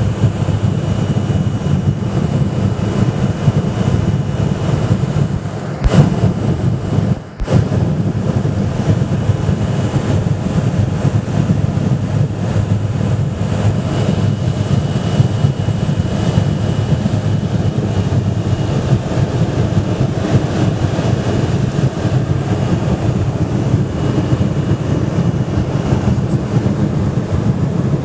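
Ski plane's engine and propeller droning loudly and steadily, with a faint steady high whine above the drone. The sound drops out for a moment about seven seconds in.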